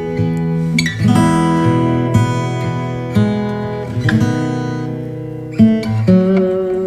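Background music: acoustic guitar chords strummed and left to ring, a new chord about every second.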